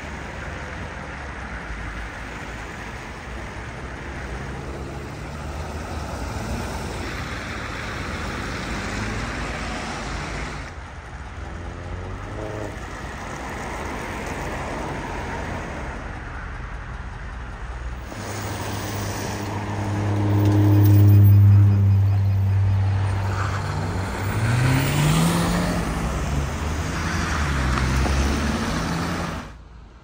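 Road traffic passing: a steady rush of vehicles, then a louder vehicle whose engine hum peaks about two-thirds of the way through, and an engine rising in pitch as it accelerates near the end.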